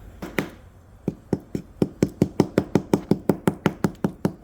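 A hand tool chipping at the block of a toy volcano gemstone dig kit: two knocks, then a steady run of sharp taps, about four to five a second, as the gem is dug out.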